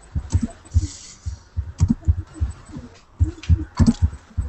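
Computer keyboard typing picked up through a video-call microphone. It comes through as irregular dull thumps, a few a second, with faint clicks.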